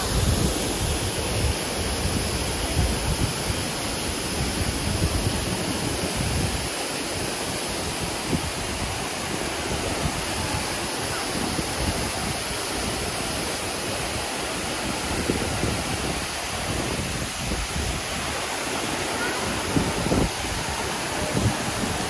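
Steady rush of water, with irregular low buffeting on the microphone.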